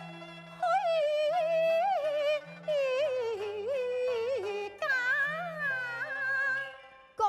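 Cantonese opera music: a lead melody line that slides and bends in pitch over a low accompaniment. It comes in strongly under a second in and drops away briefly near the end.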